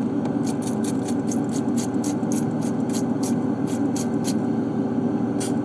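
Hand-pump spray bottle of hot water squirted rapidly into an ice maker's frozen water-fill tube, about four short hisses a second, to melt the ice clogging the line. Under it runs a steady low hum.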